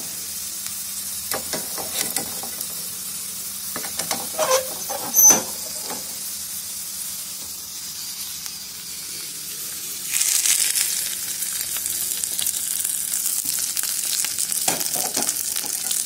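Hot-oil tempering of mustard seeds, dried red chillies, shallots and curry leaves sizzling in a small kadai, with knocks and a sharp ringing metal clink of a spoon on the pan about five seconds in. About ten seconds in the sizzle turns louder and hissier as the hot tempering is poured onto coconut chutney.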